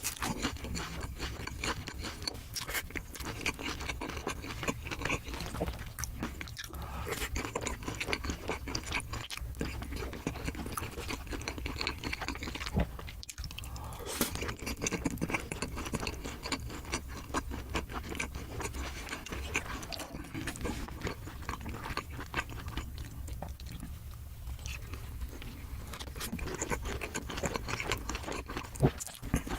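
Close-miked eating: crunchy bites and wet chewing of crispy fried food, a dense, irregular run of crackles and mouth sounds with a brief pause about halfway through.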